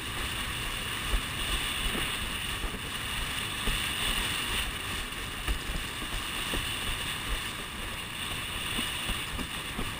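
Windsurf board planing over light chop: a steady rush of wind and water, with wind buffeting the camera microphone and a few short knocks as the board hits the chop.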